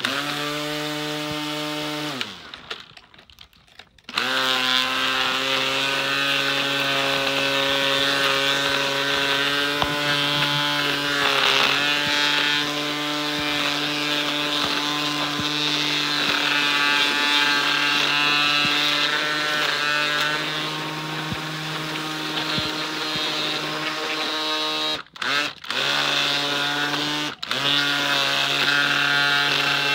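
Worx WG163 GT 3.0 20V cordless string trimmer, set up as an edger, running its electric motor with a steady whine as it cuts the grass edge along pavers. It winds down and stops about two seconds in, starts again about two seconds later, and near the end cuts out briefly three times. These cut-outs come from pressing the Command Feed button to release more trimmer line.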